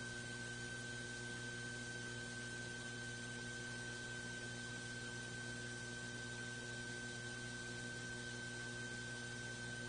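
Steady electrical hum with a thin high whine over a hiss, unchanging throughout: background noise of the recording chain, with no other sound.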